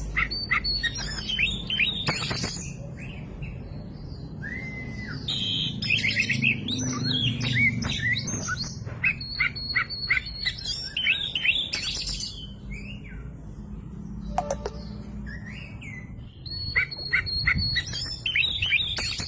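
Oriental magpie-robin (kacer) singing a loud, varied song of quick whistles, chips and upswept notes, including mimicked phrases (isian), in three spells with short pauses between them.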